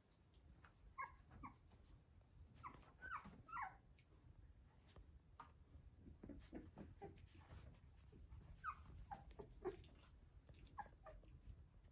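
Australian Shepherd puppies whimpering and squeaking faintly: scattered short, high calls with quick pitch slides, a few lower squeals among them.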